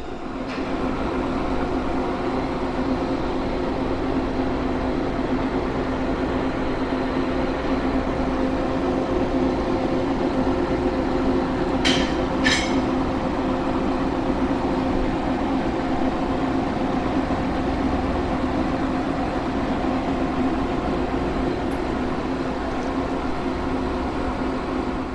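American Pacemaker engine lathe running, spinning a long finished steel gearbox shaft in its chuck: a steady mechanical hum with several held tones from the drive. Two short sharp clicks come about halfway through.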